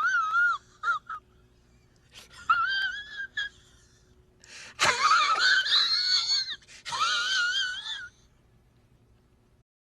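A high, wavering wheezing squeal with a fast warble, in several bursts separated by short pauses. The longest and loudest bursts come in the second half.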